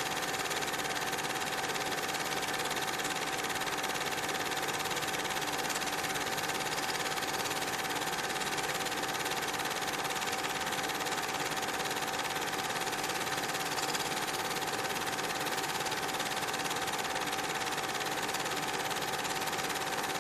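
A machine running steadily, a continuous hiss with a constant high hum through it, never changing in level or pitch.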